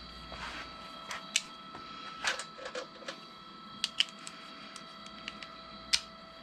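Scattered metallic clicks and clinks of sockets and hand tools being handled while the right socket size for the fork nuts is tried, a few sharp ones standing out, over a steady faint hum.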